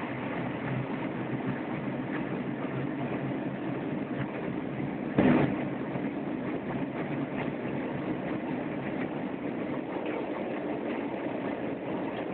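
Steady cabin noise of a Fokker F27 rolling on the ground, its Rolls-Royce Dart turboprops running and the main-gear tyres rolling over concrete, with one brief, louder thump about five seconds in.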